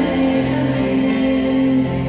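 Loud music played over a sonido's sound system, with long held notes and chords.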